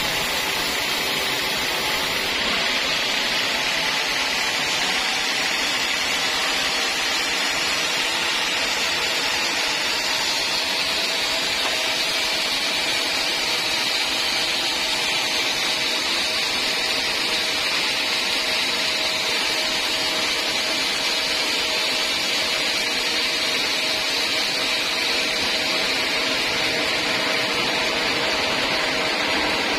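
Band sawmill running steadily: a constant even machine noise from the saw's motor and turning blade, with a faint steady tone underneath.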